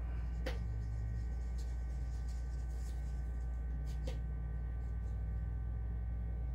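Steady low hum, with faint clicks and light scrapes of a wooden stir stick in a paper cup of acrylic paint; two small clicks stand out, about half a second and about four seconds in.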